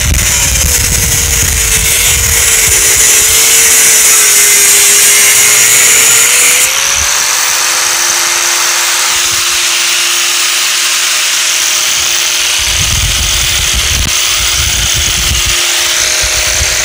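Corded angle grinder with a cut-off wheel cutting through expanded metal mesh: a steady motor whine over a harsh grinding hiss. The pitch wavers as the wheel bites for the first six or seven seconds; then the hiss eases a little and the grinder runs on at an even pitch.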